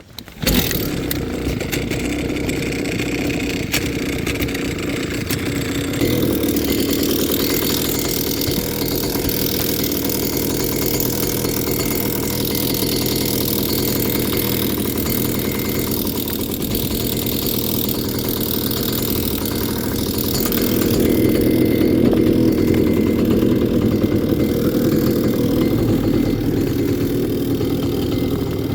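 Small outboard boat motor starting abruptly and running steadily, getting louder about six seconds in and again about twenty-one seconds in.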